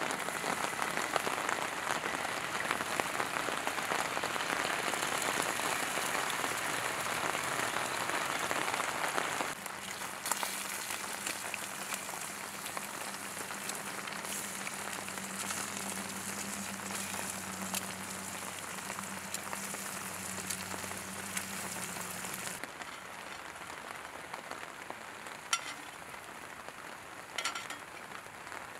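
Eggs sizzling as they fry in a hot cast-iron skillet on a camp stove, loud at first and quieter after about nine seconds, with a low steady hum under the sizzle until about two-thirds of the way in. Near the end a metal spatula clicks sharply against the pan twice.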